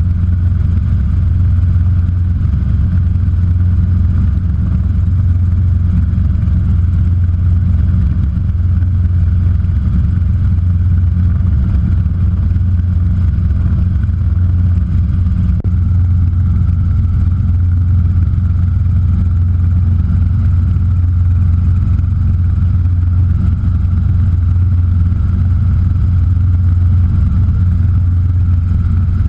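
Robinson R22 helicopter in flight: a steady, loud, low drone of the piston engine and rotor that holds the same pitch throughout.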